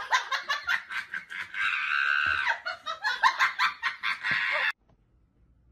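A person laughing hard off-camera in quick repeated bursts, with a longer, higher held laugh partway through. The laughter cuts off abruptly about three-quarters of the way in.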